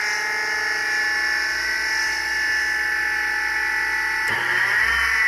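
Electric motor of a Katoku KDC-240d double-head shears sharpening machine spinning its flat hone at speed, a steady whine. About four seconds in the pitch dips and climbs back, and a low rumble joins it.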